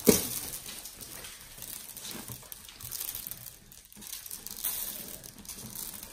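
Hands squishing and folding a lump of slime packed with water beads, making soft, wet, irregular squelches and crackles, with one louder squish at the start.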